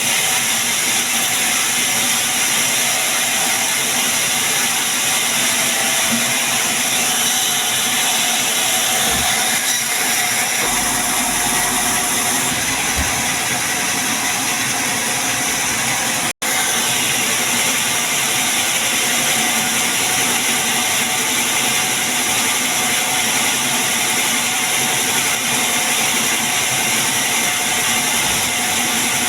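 Sawmill saw running steadily: a loud, even machine noise with a strong hiss and faint steady tones, dropping out for an instant just past halfway.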